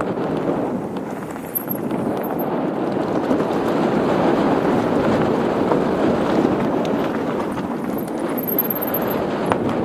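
Mountain bike rolling down a loose slate-gravel trail: a steady rush of tyre noise over stones and the bike rattling, mixed with wind on the microphone.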